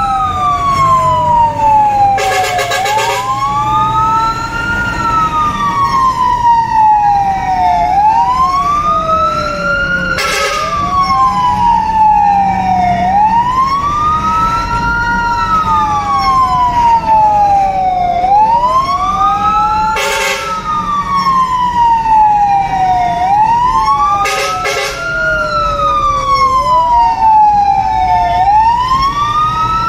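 Fire engine siren wailing, heard from inside the cab: two tones rise quickly and fall slowly about every five seconds, out of step with each other. An engine rumbles underneath, and a few brief sharp bursts cut in.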